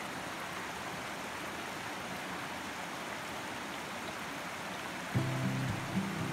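Shallow creek water rushing steadily over rocks and a small cascade. About five seconds in, music with a steady beat starts over it.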